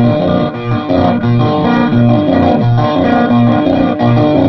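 Electric guitar solo played through effects with some distortion, over a backing track with a steady low bass pulse about twice a second.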